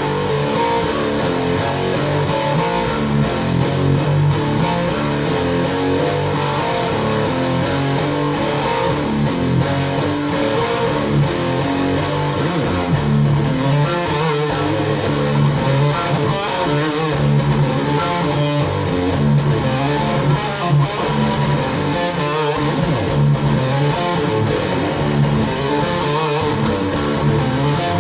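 Background music led by guitar, with a bass line, playing steadily.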